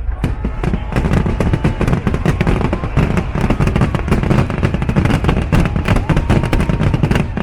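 Fireworks going off in a rapid, dense barrage of bangs and crackles, many per second, cutting off suddenly at the end.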